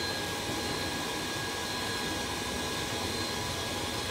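Electric hand mixer running steadily, its beaters whisking eggs and sugar in a glass bowl, with a thin steady whine over the motor noise. This is the stage of beating the eggs and sugar until thick and pale.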